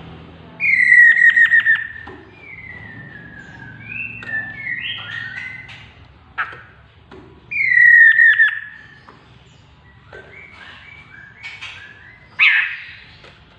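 Chestnut-capped laughingthrush singing: two loud whistled phrases about six seconds apart, each a falling whistle broken by a quick stutter, with softer gliding notes between them and a short sharp call near the end.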